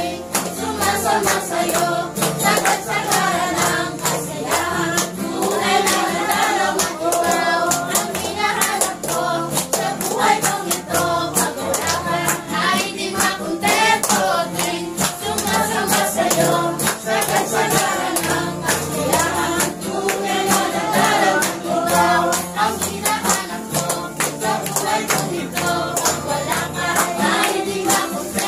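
A congregation singing a Tagalog praise song together in unison, with hand clapping keeping a steady beat.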